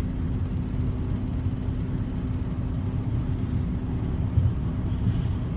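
Steady low rumble of a car driving, heard from inside the cabin: engine and road noise with a faint constant hum.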